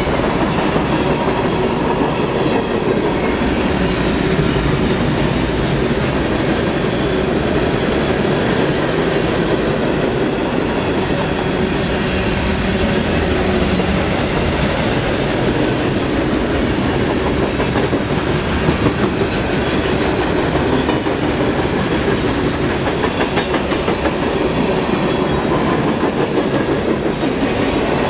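Freight cars of a passing manifest freight train, boxcars and covered hoppers, rolling by close at hand. Their steel wheels run on the rails with a steady, loud noise that does not let up.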